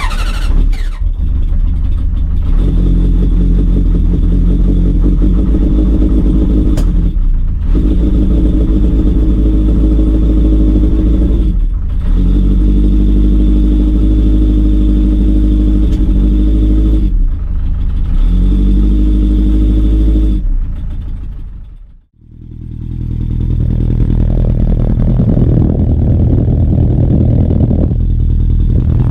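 Honda CB900F air-cooled inline-four motorcycle engine running and being revved, its pitch rising and falling. The sound breaks off briefly several times and drops out completely about 22 seconds in before building back up.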